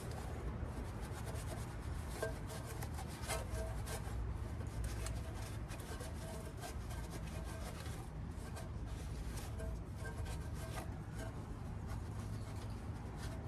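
Shop towel rubbing back and forth over the cylinder head's exhaust-port mating surface, wiping it clean: a run of short, irregular scuffing strokes over a steady low rumble.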